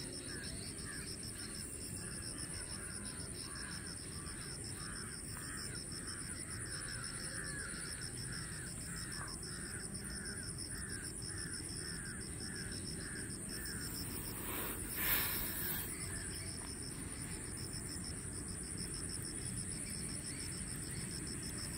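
A bird calling in a quick, regular series of harsh notes, about two a second, stopping after about thirteen seconds, over a steady high-pitched buzz. A brief loud noise comes about fifteen seconds in.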